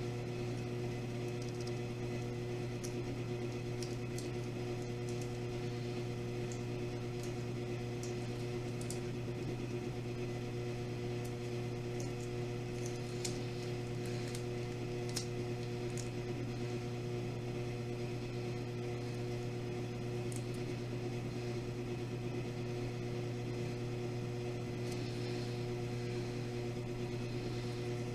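Steady electrical hum in a small room, with a few faint light ticks scattered through it.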